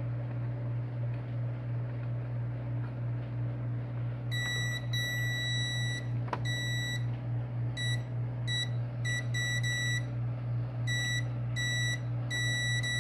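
Digital multimeter's continuity beeper sounding a steady high beep. It starts about four seconds in and cuts in and out irregularly as the probes make and lose contact on a panel lamp's terminals. The beep shows the lamp's filament conducts, so the bulb is good. A steady low hum runs underneath.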